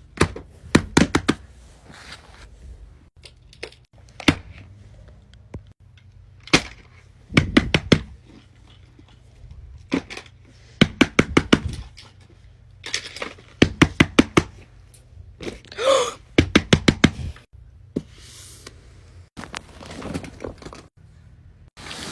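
Fidget toys being clicked and tapped: runs of quick, sharp clicks, several strokes at a time, with short pauses between the runs.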